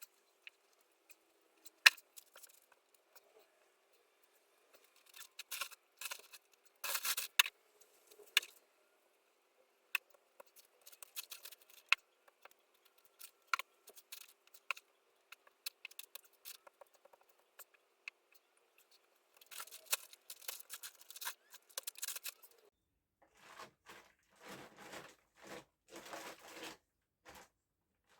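Hand digging in collapsed clay: scattered scrapes, clicks and knocks of a tool working the clay, ending with a run of evenly spaced scraping strokes, about one and a half a second.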